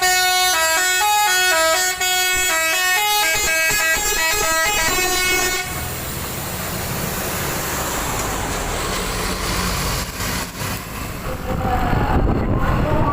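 Bus "telolet" multi-tone musical horn playing a quick tune of stepping notes, stopping about six seconds in. After it the bus's engine runs on with a low rumble.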